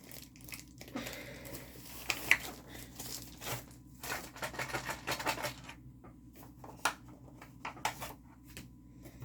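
Plastic packaging and small craft items being handled: irregular clicks, taps and rustles, with a sharper click about two seconds in.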